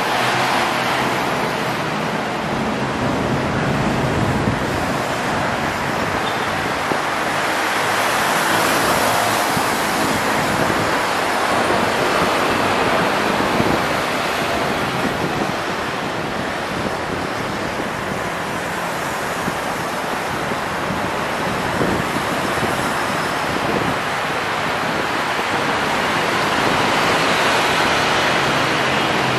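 Steady rushing noise that swells and fades slowly over several seconds, with no distinct single events.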